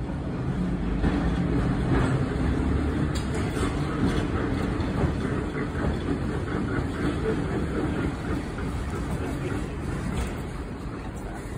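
Streetcar 417, an 1888 Baltimore City Passenger Railway car, rolling slowly along the track: a low rumble of steel wheels on the rails with a few light clicks over the rail joints. The rumble fades toward the end as the car draws up.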